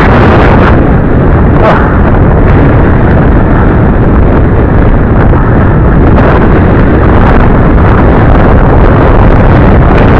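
Wind buffeting the microphone of a glasses-mounted camera on a mountain bike riding fast downhill, a loud, distorted rumble, with a few sharp knocks from the bike over the rough lane.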